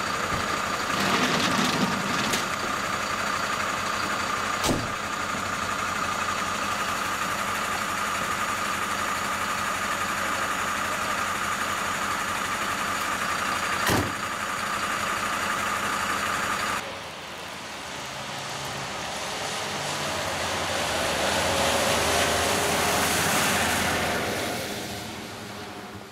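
Fire engine's diesel engine idling with a steady whine, broken by two sharp knocks, about five seconds in and about fourteen seconds in. About seventeen seconds in the sound changes to an engine that swells and then fades as the fire engine drives off.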